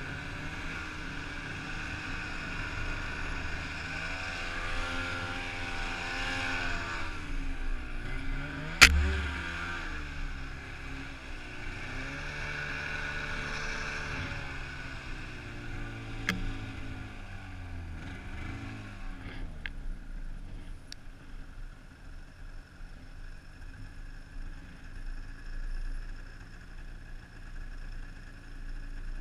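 Arctic Cat 600 snowmobile's two-stroke engine running under changing throttle, its revs rising and falling over and over. A sharp knock about nine seconds in is the loudest sound, with a lighter one near sixteen seconds. From about twenty seconds in the engine is much quieter and steadier.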